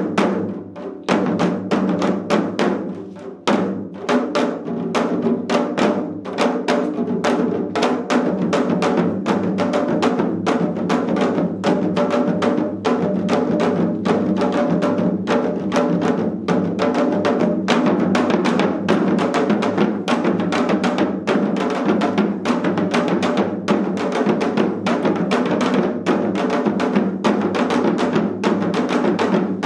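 Janggu hourglass drums played together in seoljanggu, sharp stick strokes on the drumheads. The strokes come spaced apart for the first few seconds, then run into a dense, rapid rhythm.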